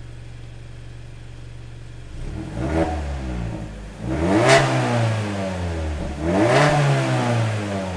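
Mazda3's engine exhaling through an aftermarket electronic-valve exhaust: idling steadily, then revved three times, each rev rising in pitch and falling back to idle.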